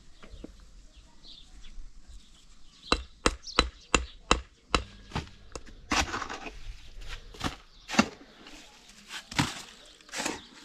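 Repeated sharp blows of a hand tool striking a hard material, as in chopping or building work. They begin about three seconds in and come irregularly, roughly one or two a second.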